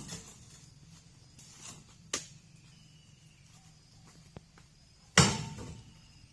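A few separate thuds over a faint low hum. The loudest comes about five seconds in and dies away over about a second.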